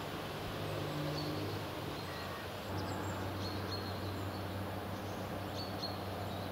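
Outdoor lakeside ambience: an even background hiss and a steady low hum, with a few faint, short bird chirps.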